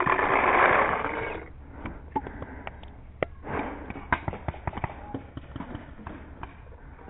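Rustling and scraping as a gun-mounted camera and paintball marker brush through grass against a concrete bunker, loudest in the first second and a half, with a softer rustle partway through. Scattered sharp taps and clicks run throughout.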